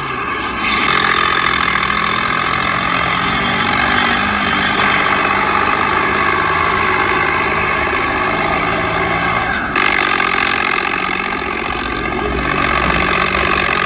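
A vehicle engine running steadily; the tone shifts slightly about ten seconds in.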